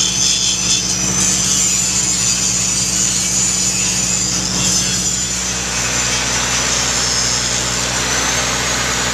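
A steady engine drone from an engine-driven welder-generator running at constant speed. Over it, an angle grinder grinds steel on a tractor bucket, a high hiss and whine that eases after about five or six seconds.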